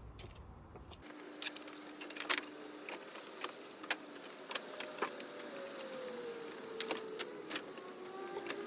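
Scattered light clicks and rattles of a plastic front bumper being handled and offered up to the van, with a faint hum slowly falling in pitch in the background.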